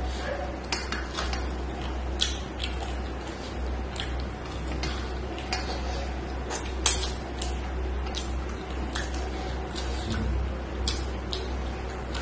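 Close-miked sounds of eating rice and curry by hand from a stainless steel plate: fingers scraping and tapping the steel, with irregular sharp clicks, the loudest about seven seconds in.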